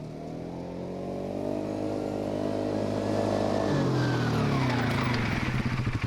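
A vehicle engine running: its pitch climbs slowly as it revs, drops back about three and a half seconds in, then settles into a steady, rapid putter.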